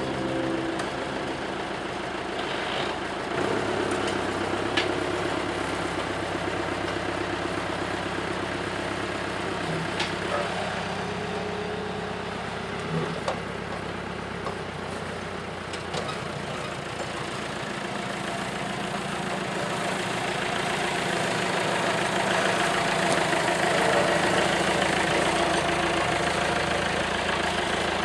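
Farm tractor engine running steadily, with a few short knocks partway through. It grows louder toward the end as the tractor comes closer.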